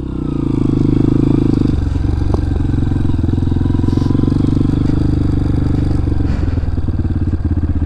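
Honda CRF230F dirt bike's single-cylinder four-stroke engine pulling away and running under way, swelling over the first second. Its note changes about two seconds in and again after six seconds.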